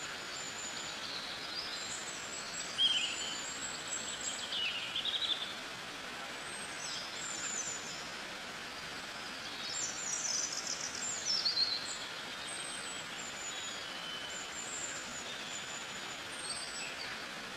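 Songbirds chirping and trilling over a steady outdoor hiss, with many short high calls that come thickest about three, five and ten to twelve seconds in.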